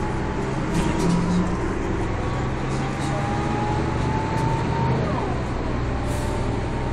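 Mercedes-Benz OM447hA horizontal six-cylinder diesel engine of a Jelcz M122MB city bus running under way, a steady drone with a thin whine that rises slowly in pitch from the ZF 4HP590 automatic gearbox, and a few short clicks and rattles.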